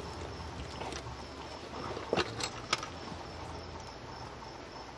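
Crickets chirping steadily in the background, with a few sharp cracks about two to three seconds in.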